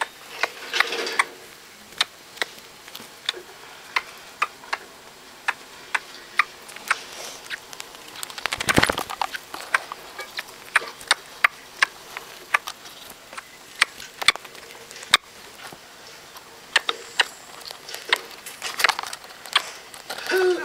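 Pet rat making a string of sharp, irregular clicks, roughly one or two a second, with a short louder rustling burst about nine seconds in.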